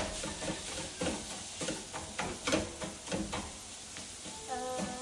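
A utensil scraping and knocking in a frying pan of browning ground sausage, with a few separate clicks over a faint sizzle.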